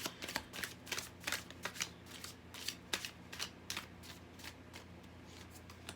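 A deck of tarot cards being shuffled by hand: a quick run of light card snaps and flicks that thins out and stops near the end.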